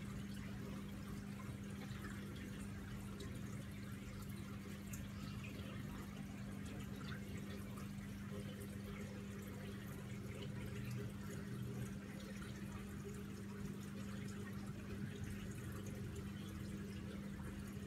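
Aquarium water bubbling and trickling from an air stone, a dense patter of small drips and crackles over a steady low hum.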